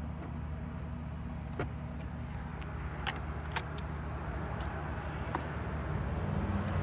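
Scattered sharp metallic clicks from a ratchet and 7mm socket loosening hose clamps on an intake tube, over a steady low hum.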